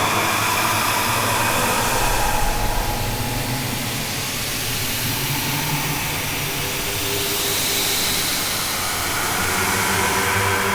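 Haunted-house ambience: a steady, droning low hum with a hissing, airy wash above it that slowly swells and ebbs, with no sudden sounds.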